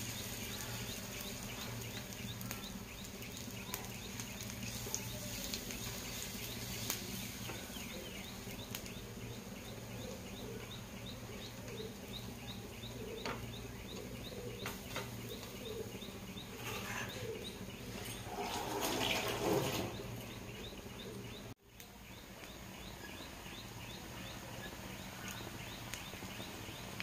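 Vegetable and cheese batter frying on a hot oiled iron tawa with a steady sizzle, as fingers press and spread it. A faint, high chirp repeats a few times a second through much of it.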